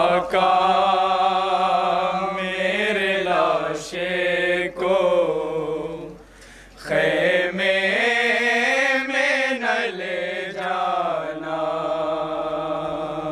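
A group of young men reciting a noha, a Shia mourning lament, together into microphones without instruments, in long held phrases with a short break about six seconds in.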